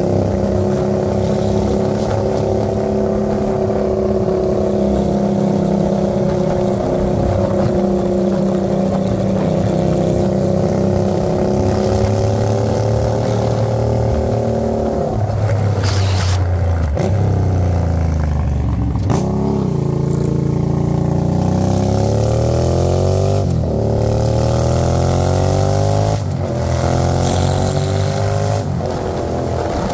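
Hyosung GV650's V-twin engine through a new exhaust, running at steady cruising revs for about fifteen seconds. It then drops in pitch as it slows, and pulls away again through three upshifts, each a rising sweep in pitch that breaks off at the shift.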